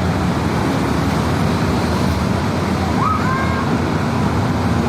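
Steady, loud noise of a bus engine and road traffic at close range, with a brief rising call about three seconds in.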